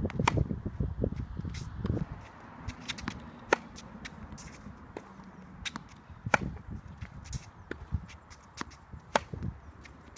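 Tennis rally on a hard court: sharp racket-on-ball strikes about every three seconds, with fainter ball bounces and footsteps scuffing on the court in between.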